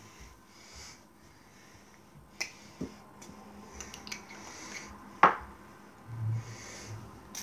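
Glass fragrance spray bottle handled close to the microphone: a few sharp clicks of the cap and nozzle, the loudest a little over five seconds in, and several short hissing spritzes of spray.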